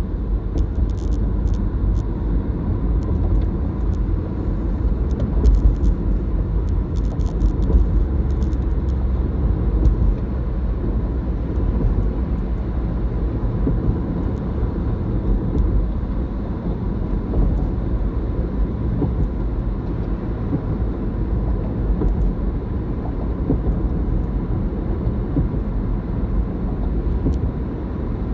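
Steady low rumble of tyre and engine noise heard inside a car cruising on a freeway.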